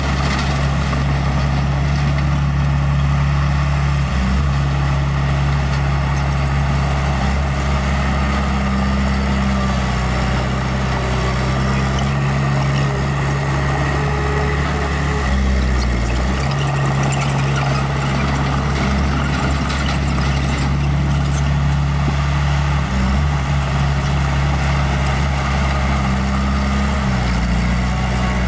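Small bulldozer's diesel engine running steadily, its note stepping up and down a few times as it works.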